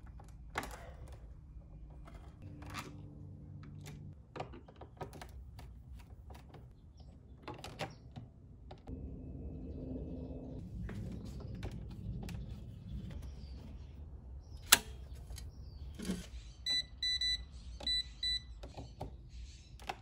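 Scattered knocks and clicks as a microwave oven is handled on a cabinet shelf, with one sharp loud click about three-quarters through. Near the end comes a quick run of about six short electronic beeps, typical of a microwave's keypad being pressed.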